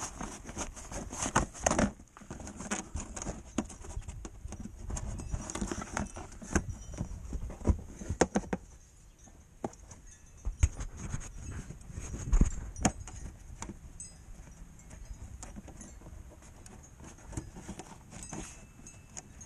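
Hand tools and metal parts being handled during car repair work: irregular clicks, knocks and clinks, the loudest about twelve seconds in.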